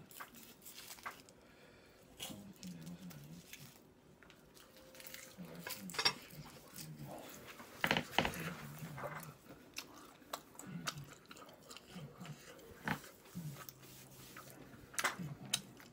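A person chewing and biting mouthfuls of kimchi fried rice wrapped in roasted seaweed, with wet mouth sounds and crunches. Several sharp clicks are scattered through, and a low hum runs near the end.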